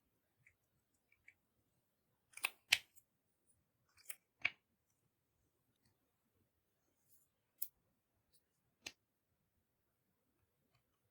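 Scattered sharp clicks and snaps from hands working slime and makeup containers, about six of them, the loudest pair about two and a half seconds in.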